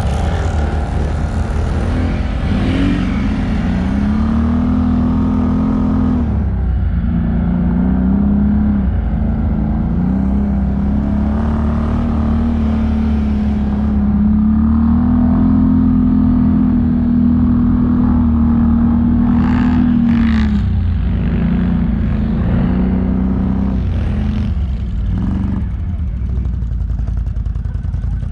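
ATV engine running under varying throttle, its pitch rising and falling again and again over a constant low noise.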